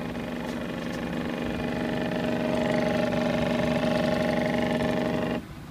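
Solar tracker's drive motor running with a steady whine as the tracker works through its rewind routine back toward the home position. It grows a little louder, then cuts off suddenly about five seconds in.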